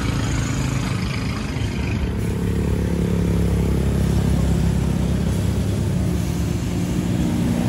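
Motor vehicle engine idling with a steady low hum.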